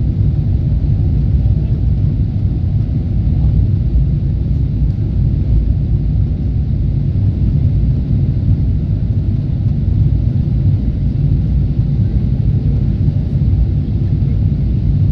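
Steady low rumble of a Boeing 777-300ER's GE90-115B engines and the rushing air, heard inside the passenger cabin as the airliner climbs after takeoff.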